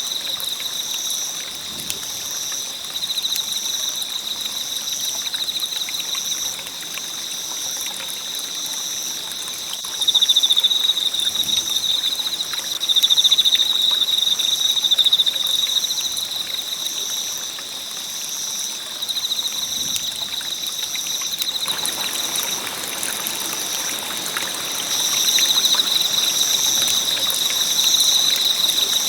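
Campfire burning with a steady crackle and hiss of scattered small pops. Over it runs a continuous high-pitched trill, with a second, higher tone pulsing about once a second.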